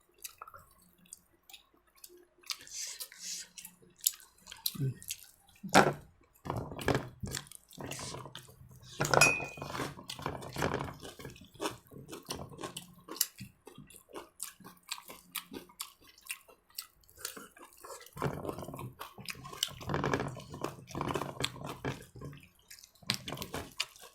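Scattered clinks and clatter of plates and cutlery being handled, with a few louder knocks and low voices in the background.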